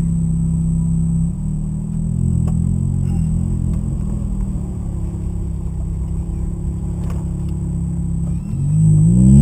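Lamborghini Gallardo LP560-4's V10 engine running at low revs, heard from inside the cabin. Near the end the engine note rises and grows louder.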